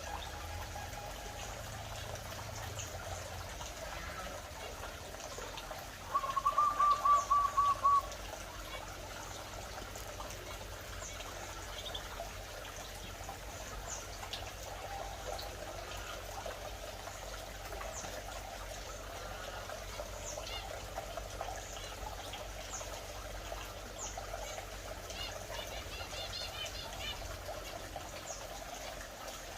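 Canaries and zebra finches chirping off and on in short high calls. About six seconds in, one bird gives a loud run of about ten quick repeated notes lasting a couple of seconds, the loudest sound here.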